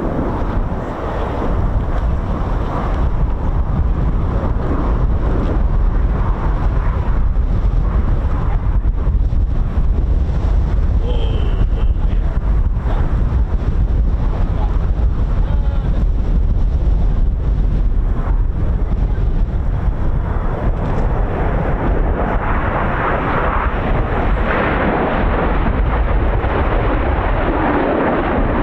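Strong wind buffeting the microphone over the rushing of the Red Arrows' BAE Hawk T1 jet engines; the jet rush swells about three-quarters of the way through.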